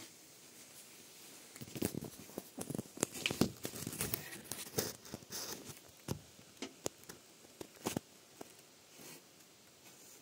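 Handling noise: a run of irregular clicks, taps and crinkly rustling from about a second and a half in until about eight seconds in.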